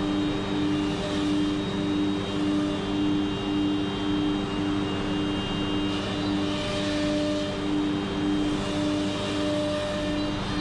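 HOMAG CENTATEQ CNC router's spindle running at 18,000 RPM with a ½-inch downshear bit, cutting blind dadoes: a steady machine drone with a mid tone pulsing slightly under twice a second and a higher whine above it. A hiss of cutting swells about six to seven seconds in and again near the end.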